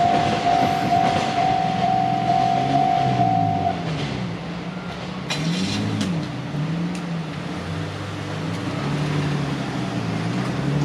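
Japanese railway level-crossing alarm sounding a repeating tone about three times a second, then cutting off about four seconds in once the train has cleared. After that, road vehicles' engines rise and fall in pitch as traffic pulls away over the crossing.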